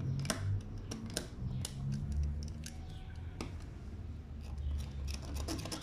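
Soldering iron tip scraping and tapping on a small LED driver circuit board: scattered light clicks over a faint low hum.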